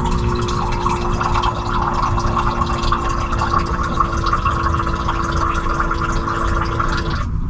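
Water being dispensed into a cup by a small electric pump, a steady motor whir under splashing water, which cuts off suddenly about seven seconds in.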